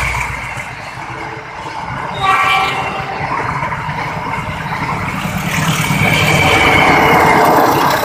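Argo Bromo Anggrek express passenger train running past at speed over a short bridge: a steady rushing noise of the carriages on the rails, growing louder near the end, with a short high tone about two seconds in.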